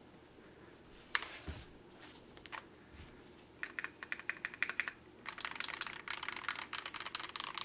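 Typing on a custom Tofu65 V3 65% mechanical keyboard with Akko red linear switches and KAT-profile PBT keycaps, as a sound test. A few single keystrokes come first, then two runs of fast typing with a short pause between them.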